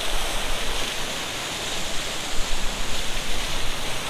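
Rushing white water of river rapids and falls: a steady, dense hiss of fast-flowing water around a coracle, swelling a little now and then.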